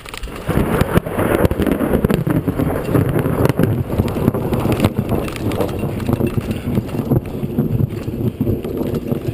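Mountain bike rattling and clattering over a rocky dirt trail at speed, tyres crunching on gravel, with wind buffeting the microphone. It grows loud about half a second in, with many small knocks and clicks throughout.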